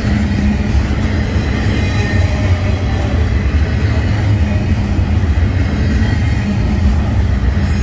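Double-stack intermodal freight train's well cars rolling past on the rails: a loud, steady rumble of wheels on track.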